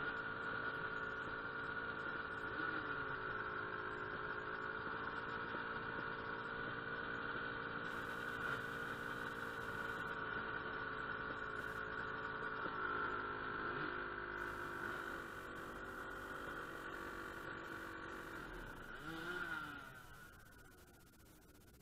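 Dirt bike engine idling steadily, then winding down and dying away about nineteen seconds in.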